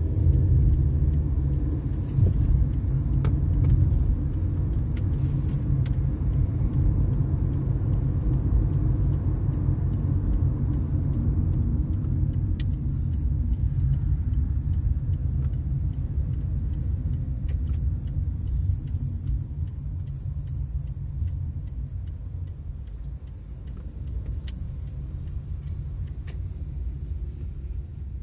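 Road noise inside a moving car's cabin: a steady low rumble of engine and tyres, easing off over the second half as the car slows in traffic.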